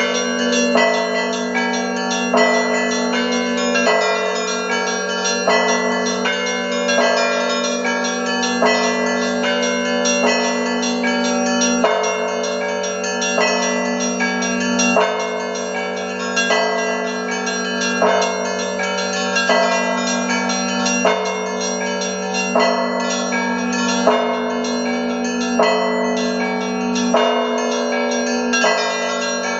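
Russian church bells rung by hand from a bell set (zvon): a dense, continuous pattern of small and middle bells struck over a deep, sustained hum from the larger bells, with heavier strokes about once a second.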